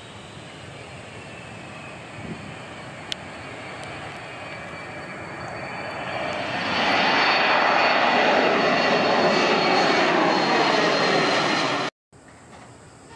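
Kawasaki C-1 transport's twin JT8D turbofans at power as it climbs away from a touch-and-go. The jet noise builds and is loudest as the aircraft passes overhead, with a steady high whine over the roar. It cuts off suddenly near the end, and fainter jet noise follows.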